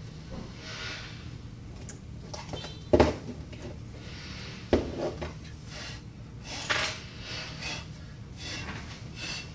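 Small repair tools and glass being handled on a work surface: a few sharp clinks and knocks, the loudest about three seconds in, with quieter scraping and rubbing between them.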